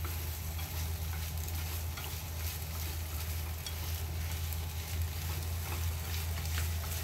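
Food sizzling in oil in a frying pan while being stirred, with faint scattered clicks of the utensil against the pan, over a steady low hum.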